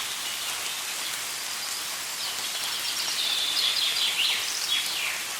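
Steady rain falling, with a songbird singing over it from about two seconds in: a quick run of chirps ending in a few falling notes, louder than the rain.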